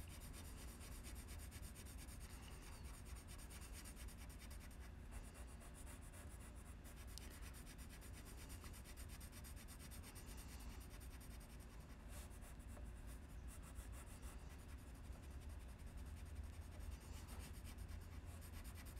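Colored pencil scratching on paper in quick, light back-and-forth shading strokes, purple laid over blue, faint over a low steady hum.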